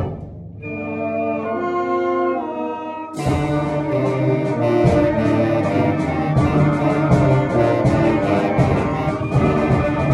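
Concert band music with percussion, and a clarinet and a bass clarinet playing along. The band thins to a few clear held notes just after the start, then comes back in full about three seconds in.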